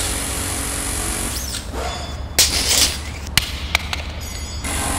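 Commercial sound effects over a low steady hum: a swish about a second and a half in, a noisy crash about two and a half seconds in, then two sharp clicks.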